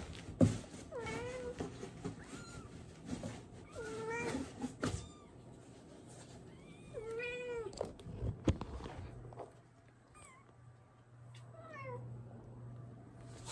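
Domestic cats meowing, about six separate meows, the last few fainter, with a few sharp knocks in between.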